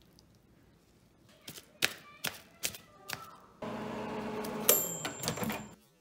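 A few sharp clicks and knocks, then a microwave oven running with a steady hum for about two seconds, a high thin tone and more knocks over it, before it cuts off abruptly.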